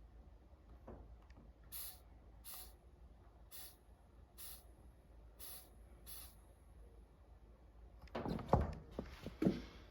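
Six short hisses about a second apart, then a few louder knocks and rustles near the end.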